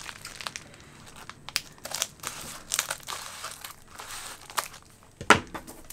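Crinkly plastic mailer crackling as it is handled and cut open with scissors, in scattered short crackles and clicks, with one louder sharp crack about five seconds in.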